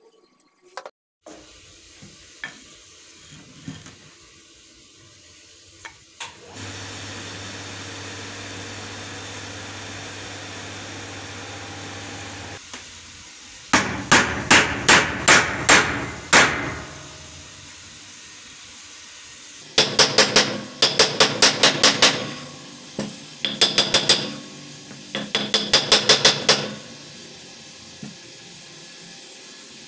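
Steel hammer head being struck onto its new wooden handle, in four runs of quick, ringing metallic blows, about three a second.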